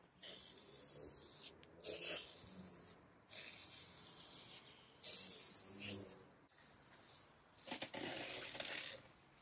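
Aerosol spray paint can hissing in four bursts of about a second each as black paint goes onto a formica top. Near the end, plastic masking sheet rustles and crackles as it is peeled away.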